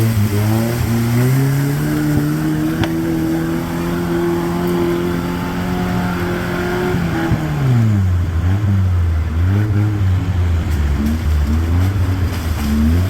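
Mitsubishi Pajero 4x4 engine under load off-road: revs climb in the first couple of seconds and hold high and steady, then drop back about seven seconds in and rise and fall repeatedly at lower revs.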